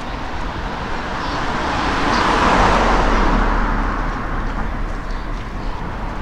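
A car driving past on the street, its tyre and engine noise swelling to a peak a couple of seconds in and then fading.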